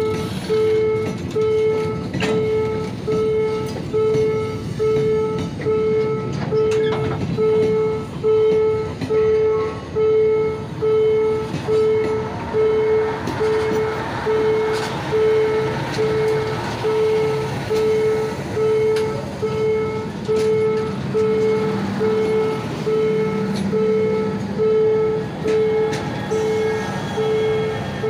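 Level crossing warning bell ringing in even strokes, about three every two seconds, over the rumble and clatter of rail wagon wheels as a freight train's boxcars and then track maintenance machines roll slowly past on the rails.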